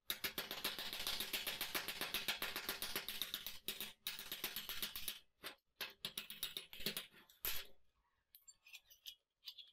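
Slag being chipped and scraped off a fresh weld on a steel bicycle chainring with a pointed steel tool: a fast run of sharp metal scrapes and taps for about five seconds, then a few separate strokes, and light handling clicks near the end.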